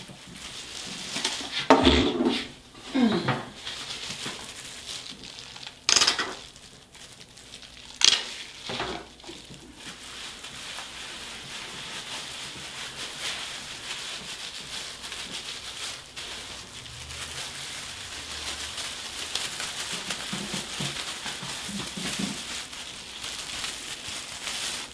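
Hands working hair dye into locs at the roots: a steady crackly rustling and squishing. A few short, sharp knocks and handling noises come in the first ten seconds.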